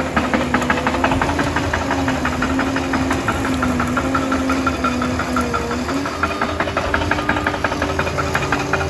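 Liebherr 746 bulldozer's diesel engine running steadily with a rapid clatter. About six seconds in, the engine note dips briefly and then steps up higher.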